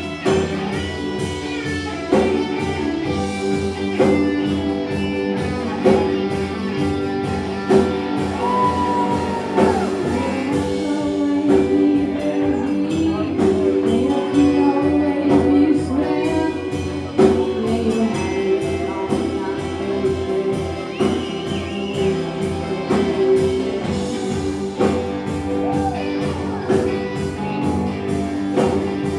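Live band playing a song: electric guitar and drum kit, with a young woman singing lead into a microphone.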